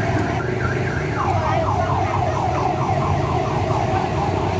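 An electronic alarm sounding a fast run of falling chirps, about five a second, starting about a second in and stopping a little past the middle. Under it runs a steady low rumble of engines.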